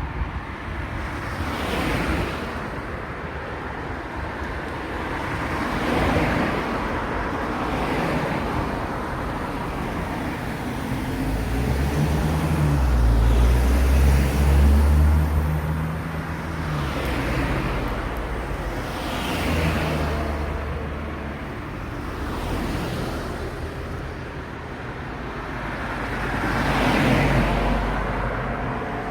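Road traffic: cars passing one after another, each rising and fading. A heavy vehicle's deep engine sound, loudest about halfway through, runs under them for several seconds.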